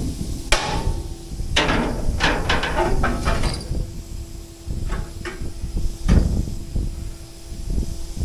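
Heavy steel banging and clanking: a string of sharp metal impacts, several in quick succession about two seconds in and a few more near the end, some ringing briefly, over a steady low hum.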